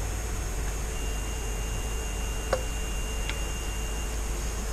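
Steady low room hum and hiss, with two small clicks about two and a half and three and a half seconds in.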